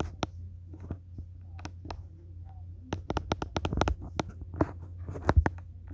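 Handling noise: irregular clicks, taps and scratches, busier in the second half, over a low steady hum.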